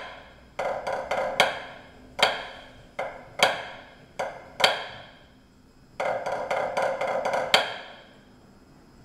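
Drumsticks playing a pipe band snare drum part on a practice pad: sharp accented strokes and short rolls, with the playing stopping about eight seconds in.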